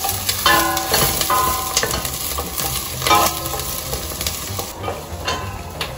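Wooden spoon stirring onions and garlic as they sauté in oil in a stainless steel pot, with a light sizzle throughout. A few sharper scrapes of the spoon against the pot ring briefly, near the start and about three seconds in.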